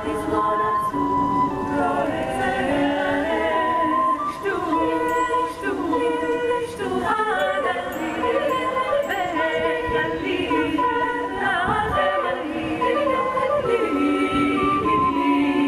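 Women's choir singing a cappella in several parts, with held notes that move together in steps.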